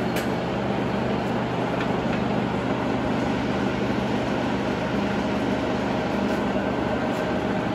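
Sachman bed milling machine's table feed drive running with a steady hum as the table travels at a newly selected, faster feed rate. There is a single click just after the start.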